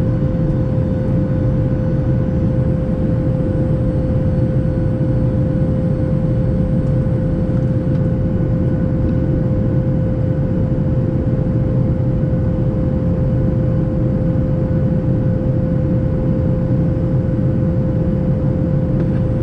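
Cabin noise in a Boeing 737 MAX 8 climbing after takeoff: the CFM LEAP-1B engines and rushing air make a steady, unbroken low roar, with one constant hum tone riding above it.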